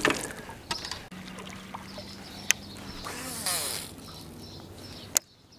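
Small knocks and clicks of someone moving about in a fishing boat, with a brief rustle or splash in the middle and a low steady hum for a couple of seconds.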